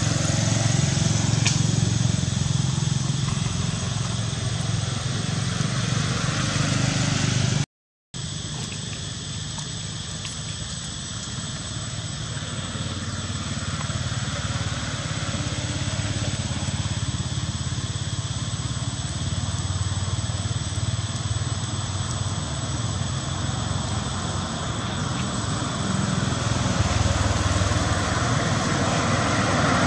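Steady low rumble of distant engine traffic, with a thin steady high-pitched tone above it; the sound cuts out completely for a split second about eight seconds in.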